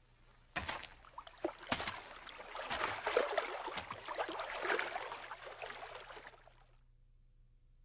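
Water splashing and dripping: a few separate drops at first, thickening into a steady wash over the first few seconds, then fading out about seven seconds in.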